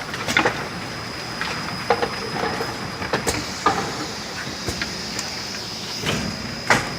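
A 27-metre production conveyor line running, with a steady high whine under irregular metallic clacks and knocks.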